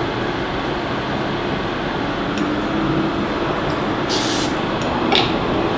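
A short hiss of aerosol cooking spray about four seconds in, over a steady background hum, with a few light metal clinks as a pancake ring is lifted from the pan.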